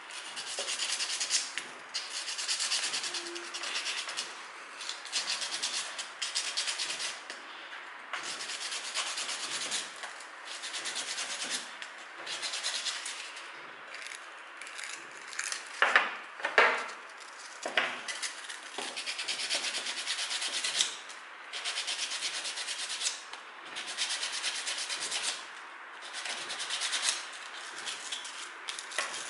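Sandpaper rubbed by hand over the small square parts of a mixer-tap cartridge, in repeated scratchy strokes with short pauses, scouring off the limescale deposits that had left the tap stiff and not closing fully. A couple of sharper knocks about halfway through.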